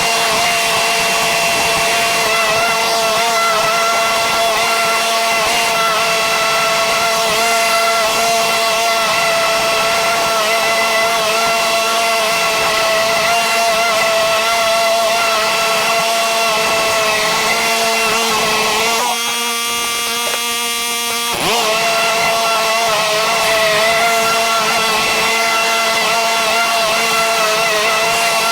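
Small gasoline engine of lawn equipment running steadily under load. About two-thirds of the way through, it dips briefly and then picks back up with a short rise in pitch.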